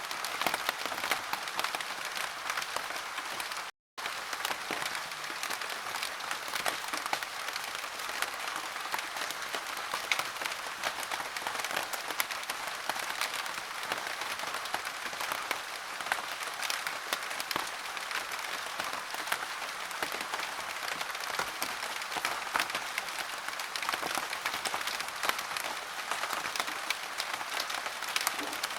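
Steady rain pattering in dense, fine drops. It cuts out completely for a split second about four seconds in.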